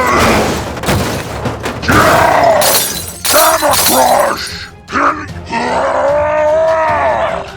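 Background music with loud crashing hits like breaking glass in the first half, then a long drawn-out cry rising and falling near the end.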